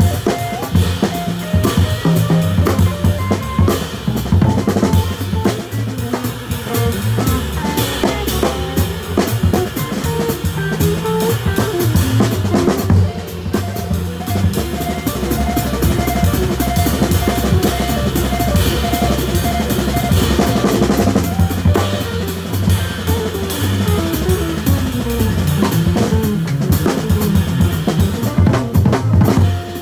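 Small jazz band playing, heard close to the drum kit: drums and cymbals are loudest, over an upright double bass and the other instruments.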